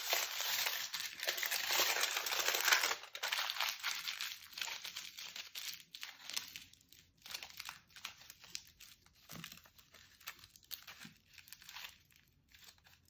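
Aluminium foil crinkling and crackling as hands wrap and squeeze it around a small foil figure's leg. Dense and continuous for the first three seconds, then thinning to scattered crackles.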